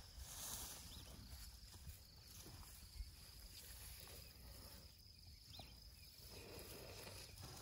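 Near silence: a faint, steady high-pitched insect trill, with a few soft rustles.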